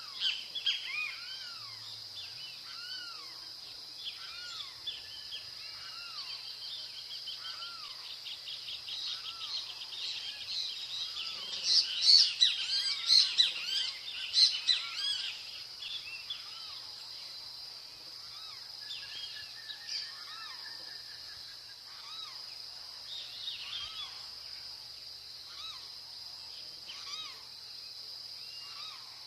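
Wild birds calling over a steady high-pitched insect drone: repeated short arched call notes throughout, and a loud burst of rapid chattering calls for a few seconds near the middle.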